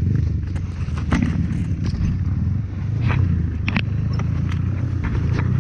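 Trail motorcycle engine running steadily at low revs, with scattered sharp knocks and clatter as the bike rides over rough ground.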